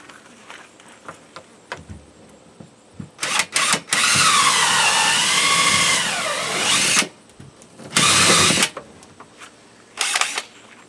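Cordless drill with a hole saw cutting through a freezer's back wall, run in bursts. A couple of quick blips, then one run of about three seconds whose pitch sags under load and recovers before winding down, then two shorter runs.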